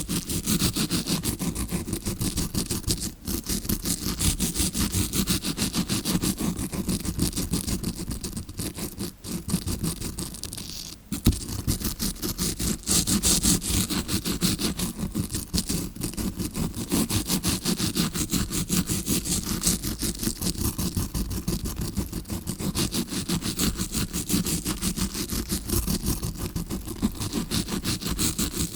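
Tawashi scrubbing brush rubbed rapidly and continuously against a recorder's microphone: close-up bristle scratching that imitates ear cleaning heard from inside the ear, with a few brief pauses.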